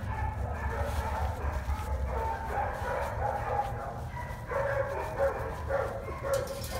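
Dogs barking and yipping over and over, short pitched calls overlapping one another, over a low rumble.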